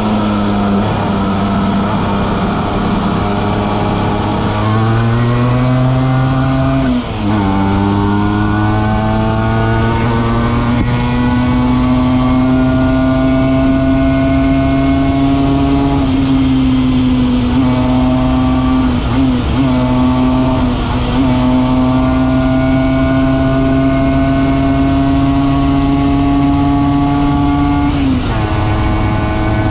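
Vespa SS90 scooter's two-stroke single-cylinder engine running hard under way. Its pitch climbs, drops sharply at a gear change about seven seconds in, then climbs slowly and holds at high revs with a few brief dips, before dropping sharply again near the end.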